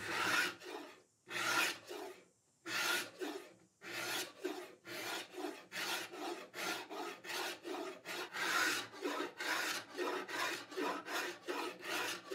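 Hand scraper, likely carbide, scraping old finish off mahogany wood in repeated pull strokes. A few slower strokes with short pauses come first, then a steady run of about two to three strokes a second.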